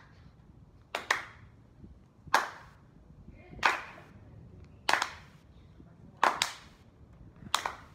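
Three people clapping their hands together in a slow, even rhythm, about one clap every 1.3 seconds, six claps in all; the claps are not quite together, so some land as a quick double clap.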